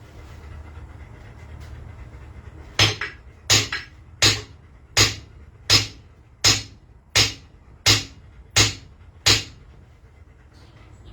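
About ten sharp, evenly spaced hammer blows, roughly three every two seconds, starting a few seconds in.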